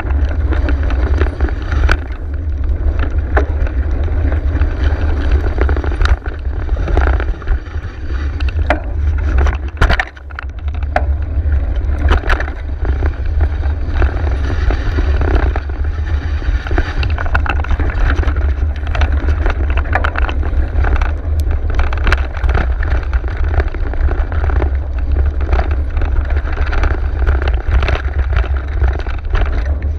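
Mountain bike riding a dirt single track, heard from a bike-mounted or rider-worn camera: a heavy low rumble of wind and buffeting on the microphone under tyre noise on the trail. Frequent sharp rattles and knocks come from the bike jolting over bumps.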